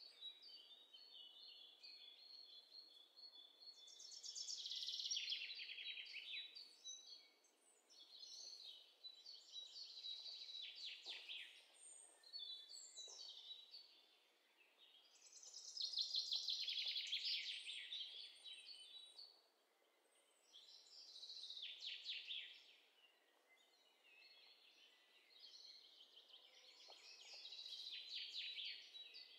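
Faint birdsong: a small songbird singing high, trilled chirping phrases a second or two long, with short pauses between them.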